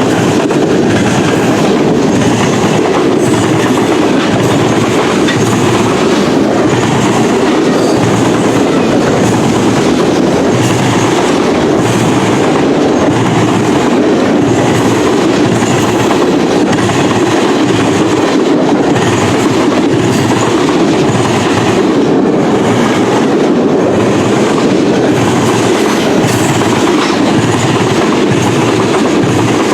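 CN freight train M396 rolling past, its cars' wheels giving a steady loud rumble with regular clickety-clack over the rail joints.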